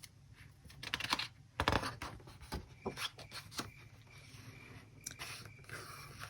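Irregular clicks and rustling of a picture book's paper pages being handled and turned, loudest a second or two in.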